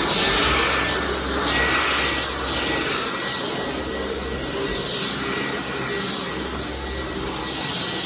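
Dyson V10 Animal cordless stick vacuum running steadily while vacuuming a hard floor: a loud rush of suction with a thin high whine through it.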